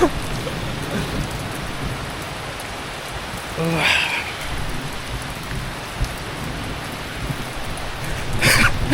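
Steady rain falling hard. About four seconds in, a man lets out a brief wavering, shivering voice.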